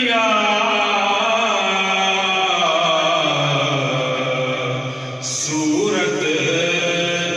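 A man reciting a naat, a devotional Urdu poem, with no instruments. He holds one long note that slowly falls, then starts a new phrase about five and a half seconds in.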